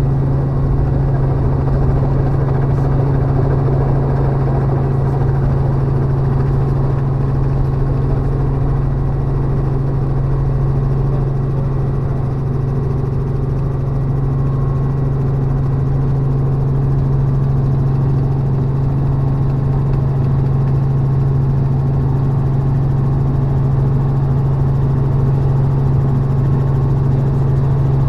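Robinson R44 helicopter heard from inside the cabin in flight: a loud, steady drone of rotors and piston engine with a strong, constant low hum.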